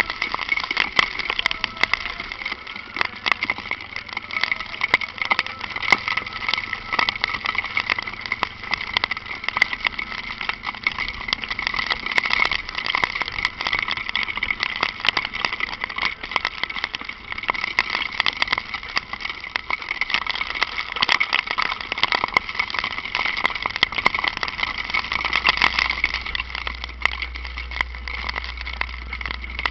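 Riding a motorcycle in light rain: a steady hiss with dense crackling ticks, like rain and spray hitting the microphone. A low rumble comes in near the end.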